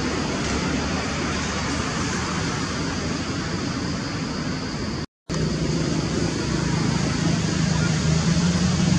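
Steady rushing background noise with a low hum, broken by a brief dropout to silence about five seconds in, after which the hum is a little stronger.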